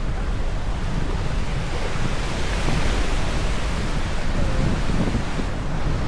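Ocean surf washing onto a sandy beach, a steady hiss that swells a little in the middle, with wind buffeting the microphone as a constant low rumble.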